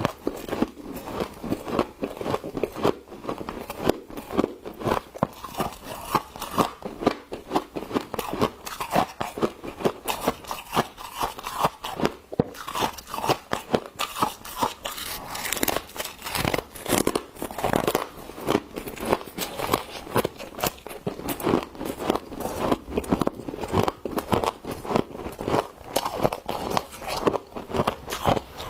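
Humidifier frost crunching in quick, irregular crunches, over and over.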